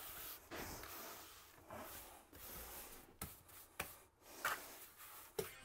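Trowel scraping and spreading a thick mortar bed over the subfloor for a shower base: quiet rubbing strokes with a handful of short, light knocks.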